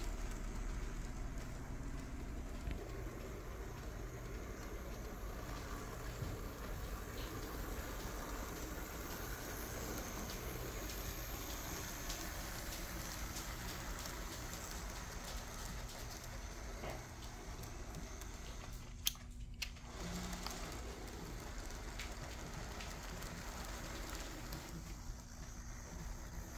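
Märklin Z-scale BR 212 diesel locomotive model running with a train of freight cars: a faint, steady whir and rattle of its small motor and wheels on the track, with a sharp click a little over two-thirds of the way through.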